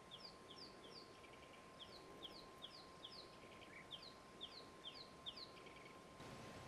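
A bird singing faintly in the bush: a long series of short, high, downward-sliding whistled notes, about two or three a second in phrases, with a few brief chattering notes between.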